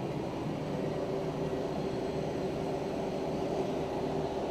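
Steady low mechanical hum with a faint constant tone, unchanging throughout: continuous machine noise in the welding shop.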